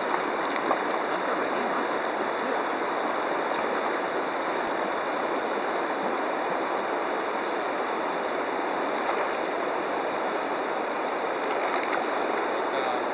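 Shallow river flowing over riffles: a steady rushing of water.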